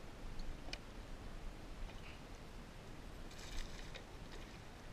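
A brief splash of water at the surface about three and a half seconds in, over a low rumble and a few light clicks.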